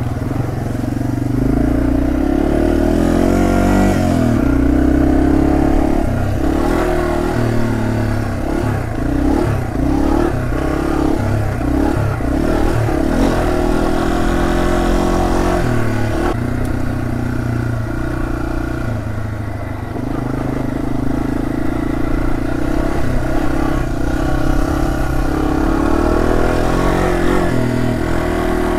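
Yamaha TW200's single-cylinder four-stroke engine running under way, its revs rising and falling over and over with throttle changes, most often through the middle of the stretch.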